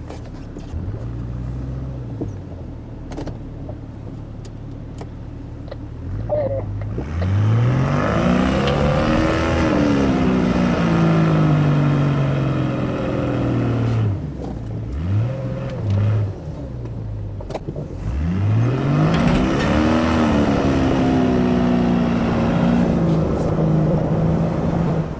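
A 4x4's engine idling, then revved hard twice, each time climbing in pitch and holding high for several seconds before dropping back: two rope pulls yanking a stuck Jeep Wrangler out of the snow.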